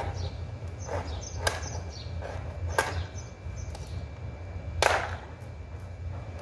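Potting soil being scooped and scraped in a plastic bucket: a series of short scrapes and knocks, the loudest about five seconds in, over a steady low hum.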